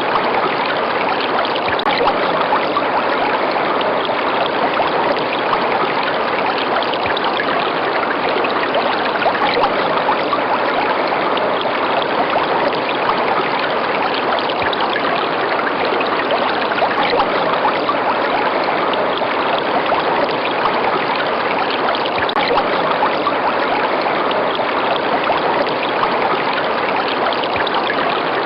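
River water running steadily, an unbroken rushing.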